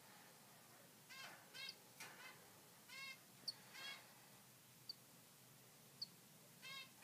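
Nestling songbird calling: a series of short calls with a wavering pitch, mixed with a few brief high chirps.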